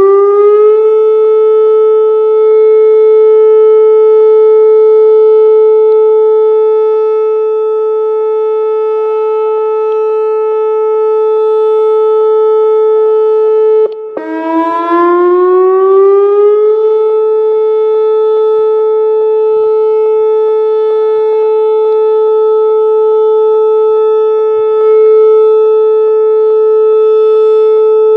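Whelen WPS 2905 electronic outdoor warning siren sounding its whoop signal in a scheduled test, pitched at 435 Hz. The tone glides up and then holds steady, cuts out briefly about halfway through, then glides up again over a couple of seconds and holds.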